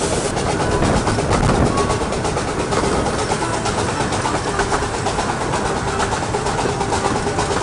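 Miniature steam train running at speed, heard from an open carriage window behind the locomotive Dr Syn: a steady rumble of wheels on rails with a fast, even clatter.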